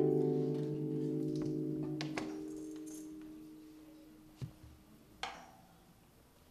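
Kanun (Turkish plucked zither) strings ringing out after a chord and fading away over about four seconds, with a few light clicks partway through as the notes die.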